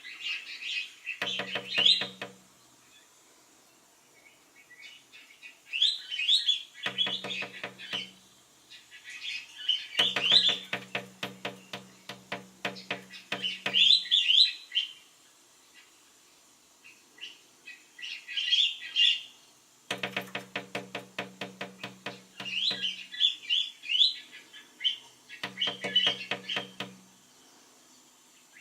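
Collared finchbill calls, coming in about six bursts of quick chattering notes with short quiet gaps between them. Several bursts carry a rapid rattle of taps underneath.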